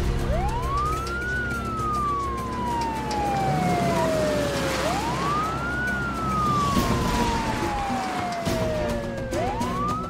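Police car siren wailing: each cycle sweeps quickly up in pitch, then falls slowly for about three seconds, repeating about every four and a half seconds.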